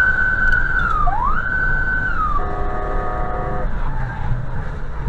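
Electronic vehicle siren giving two short wails that each rise, hold and fall. These are followed by a steady, horn-like blast of about a second. A constant low road rumble runs underneath.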